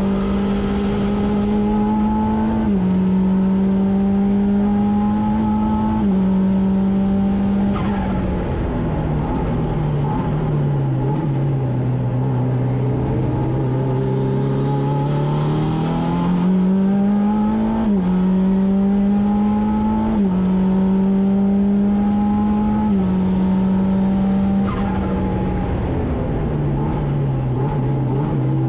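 Saker RAPX race car engine heard from inside the cockpit at racing pace. Its note climbs through the gears, with sharp drops at the upshifts about 3 and 6 seconds in, and again around 18, 20 and 23 seconds. Twice it sinks low under braking and downshifts, once around 8 to 12 seconds and again near the end.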